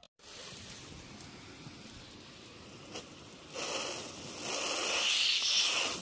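Water spraying and splattering, as from a hose, as a steady hiss that grows louder in two spells in the second half.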